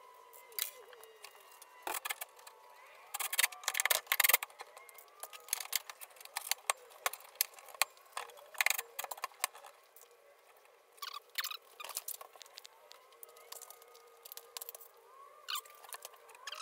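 Clicks, knocks and small rattles of tools, screws and lumber being handled on the cabinets, with a dense clatter about three to four seconds in.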